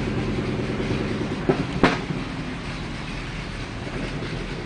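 An engine running steadily, fading away a little past two seconds in, with two sharp knocks close together about a second and a half in.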